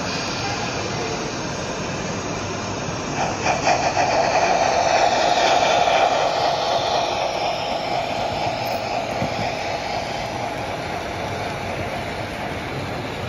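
Model train rolling past close by: a steady rolling whir from the locomotive and coaches on the track, rising about three seconds in with a quick run of clicks, then fading slowly as the coaches go by, over the steady hum of an exhibition hall.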